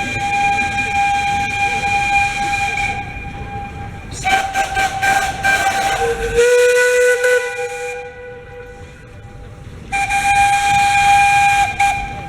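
Steam locomotive whistle blowing several long blasts over the hiss of escaping steam, each blast a chord of several notes at once, with a lower note joining in partway through the middle blast.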